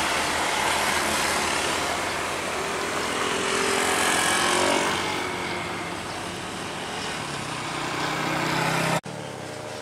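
Diesel container truck (tractor unit hauling a shipping container) passing with engine and tyre noise, fading as it pulls away. A motor scooter passes close by about four seconds in. The sound drops suddenly near the end.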